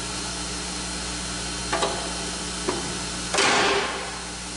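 Surface grinder running with a steady hum. Two light clicks come near the middle, and a short burst of noise about three and a half seconds in.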